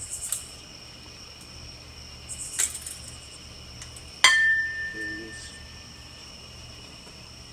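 Crickets chirping steadily. About four seconds in, a sharp clink is followed by a single clear ringing tone that fades away over about a second and a half. Two brief scrapes come before it.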